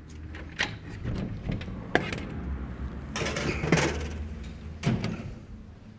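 Objects being handled on a kitchen counter: a string of light clicks and knocks, a rustling stretch in the middle, and a thump near the end, over a low steady hum.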